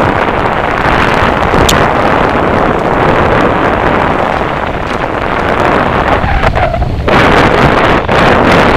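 Wind rushing over an on-board camera's microphone as a mountain bike descends a dirt singletrack at speed, mixed with the rumble and rattle of the tyres and bike over the trail. The rush eases briefly about six seconds in, then comes back.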